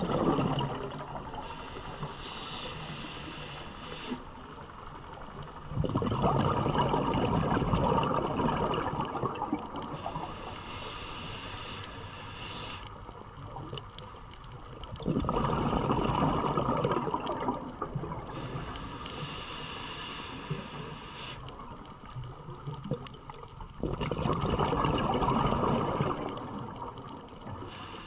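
Scuba diver breathing through a regulator underwater: a soft hissing inhale, then a louder rush of exhaled bubbles, three breaths about nine seconds apart.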